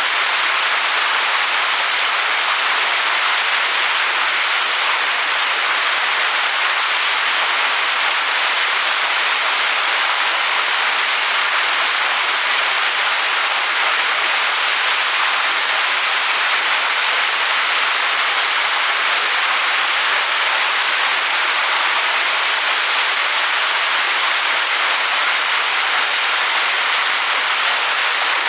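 Waterfall splashing down onto rocks: a steady, even rush of falling water.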